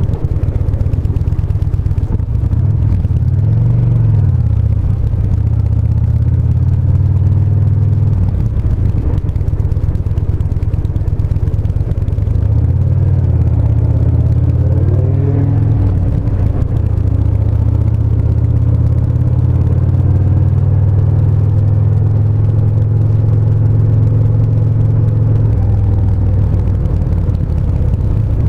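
Yamaha SCR950's air-cooled V-twin engine running under way. Its pitch rises and falls with the throttle about three seconds in and again around thirteen to sixteen seconds, then holds steady for a long stretch, with a small change near the end.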